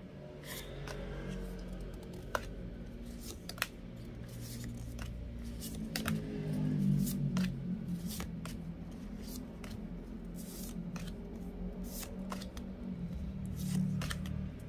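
Thick cardstock oracle cards being slid off a hand-held deck one at a time, each giving a short papery flick, about once a second at an uneven pace. Soft background music plays underneath.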